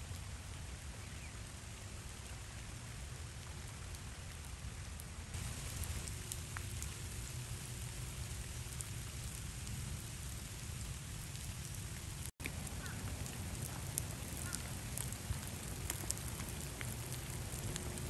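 Steady rain falling, with scattered single drops ticking close by. The sound cuts out for an instant about twelve seconds in.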